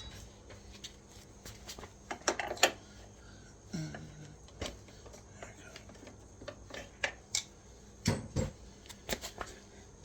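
Irregular metallic clinks and knocks of hand tools against a motorcycle's rear wheel parts while the stuck rear axle is worked loose. The loudest knocks come about a third of the way in and again near the end.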